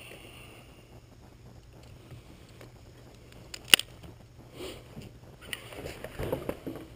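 Quiet outdoor background with a steady low hum and hiss. One single sharp crack a little past halfway is by far the loudest sound, and faint distant voices come near the end.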